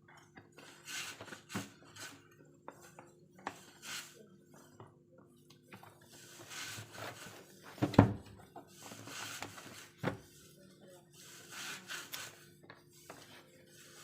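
Books and their packaging being handled and unwrapped by hand: rustling and scraping in short spells, with a sharp knock about eight seconds in and a smaller one about ten seconds in, over a faint steady hum.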